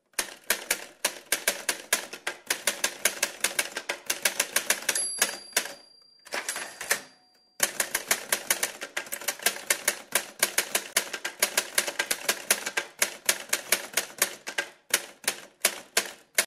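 Typewriter sound effect: rapid key clacks, about five a second, as a line of text is typed out. A high ring sounds about five seconds in, and the clacks stop for a couple of seconds before starting up again.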